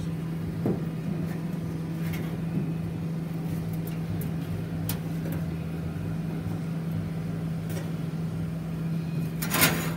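Steady low machine hum with a few faint clicks, and a brief loud burst of noise near the end.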